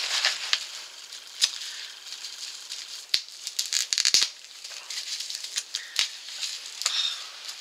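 Small envelope being opened and its contents handled: a light crinkling rustle broken by scattered sharp clicks, with a quick flurry of clicks about four seconds in.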